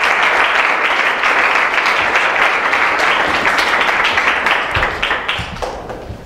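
Audience applauding, thinning out to a few scattered claps near the end, with a couple of low bumps.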